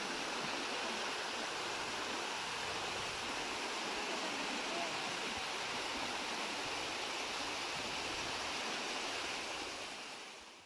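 Steady rushing of a small rocky stream cascading over boulders, fading out near the end.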